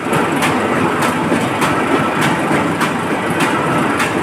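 Paper-plate sheet-making machine running, a steady mechanical din with a sharp clack repeating about every 0.6 seconds as the machine cuts the laminated paper into sheets.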